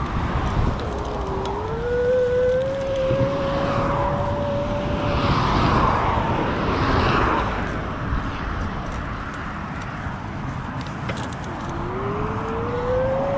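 Electric bike motor whining and rising in pitch as it picks up speed, once from about a second in and again near the end, over a steady rush of wind on the microphone.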